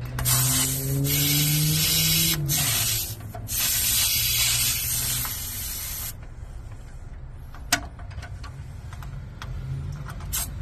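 Air hissing out of a car tire's valve stem in long spurts while the inflator's air chuck is fitted onto it, stopping after about six seconds once the chuck seals; a single sharp click comes a little later.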